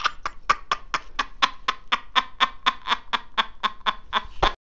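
A man laughing in a long string of short, evenly spaced "ha" bursts, about four a second, cut off suddenly near the end.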